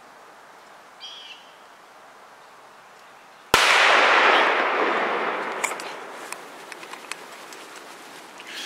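A single deer rifle shot about three and a half seconds in. Its report rolls away in a long echo that fades over about three seconds.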